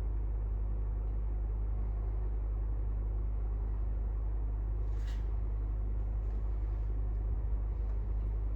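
Brand-new Pioneer 9,000 BTU mini split running with a steady low hum, and one sharp click about five seconds in: the clicking noise that the owner takes for a fault in the unit.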